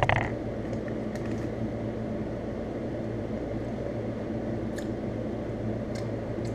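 Steady low mechanical hum of room noise, with a few faint clicks.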